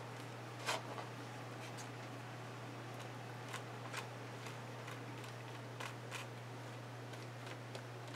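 Fingers spreading paint on a paper journal page: scattered soft rubs and taps of the hand on paper, the loudest about two-thirds of a second in, over a steady low hum.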